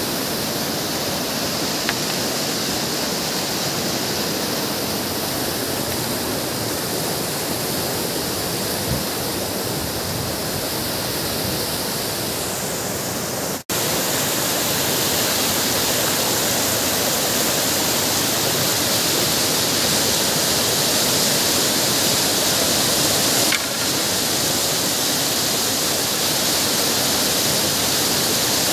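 Fast river rushing over boulders in whitewater rapids: a steady, loud rush of water. It drops out for an instant about halfway through and comes back slightly louder.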